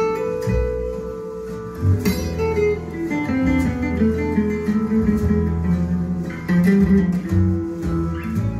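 Guitar music with low bass notes, played back through a pair of 3-way bookshelf speakers with Seas CA22RNY bass drivers, Seas CA15RLY midrange drivers and Aurum Cantus G2Si ribbon tweeters.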